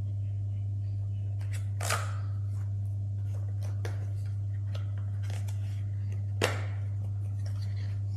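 Product packaging being handled and opened by hand: scattered rustles and light clicks, with two sharper snaps about two seconds in and near six and a half seconds, over a steady low hum.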